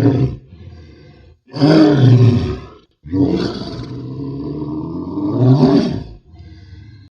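Monster roar sound effects made for cryptid creatures: a roar dies away at the start, a short roar comes about a second and a half in, then a longer roar from about three seconds swells again near six seconds and breaks off.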